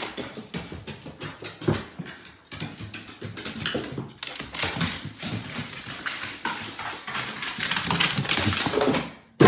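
A dog, with many irregular clicks and taps.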